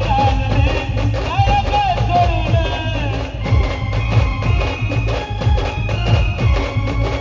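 Live band music: a Marathi song played with heavy, fast drum beats under a melody line that bends in pitch, giving way to sustained higher notes about three and a half seconds in.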